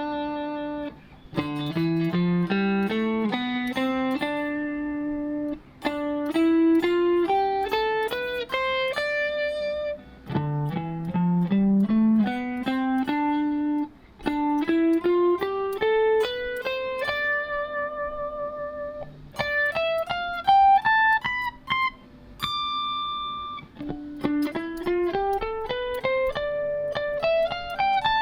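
Ibanez AZ2204 electric guitar playing the D Dorian scale one note at a time in several positions across the fretboard, each run climbing stepwise, with short pauses between runs.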